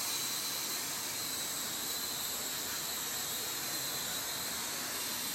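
Small four-rotor toy quadcopter drone hovering overhead, its propellers and motors making a steady high-pitched whirring hiss.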